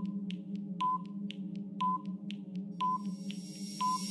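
Countdown timer sound effect: a short beep about once a second with fainter ticks between, over a steady low hum. A thin high tone and hiss build up during the last second or so.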